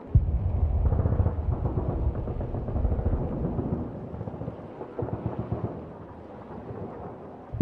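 A deep, rumbling boom that starts suddenly, rolls on with crackle and fades over several seconds, with a smaller boom about five seconds in.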